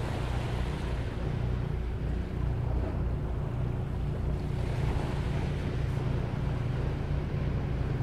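Ocean waves washing ashore on a beach, with wind rumbling on the microphone. The wash swells at the start and again about five seconds in.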